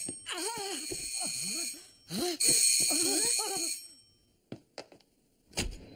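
Doorbell ringing in two long rings, the second starting about two seconds in and stopping near the middle, over a wavering, sliding voice-like sound. A few light clicks and a dull thump follow near the end.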